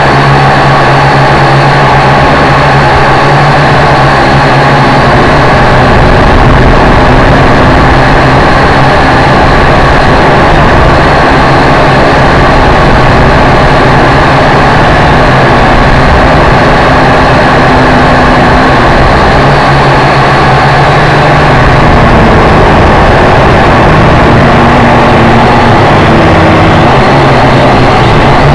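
Small electric motors and propellers of a radio-controlled aircraft running steadily right next to the onboard camera's microphone: a loud, unbroken whirr with a thin high whine over it.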